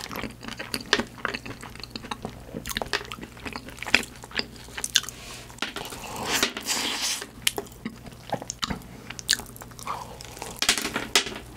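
Close-miked biting and chewing of cream puffs topped with white chocolate, chocolate chips and sliced almonds, with many sharp crunches and crackles.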